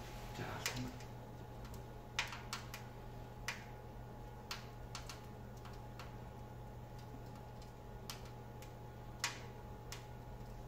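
Wood fire crackling in a boiler-combined fireplace: about a dozen sharp, irregular ticks and cracks at uneven intervals over a steady low hum.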